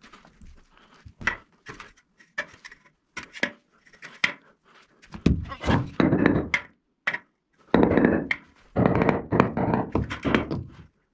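Bricks being set down and knocked into place while the first course is levelled: a run of short knocks and clicks, then, from about five seconds in, two longer stretches of rough scraping and grinding of brick on brick and mortar.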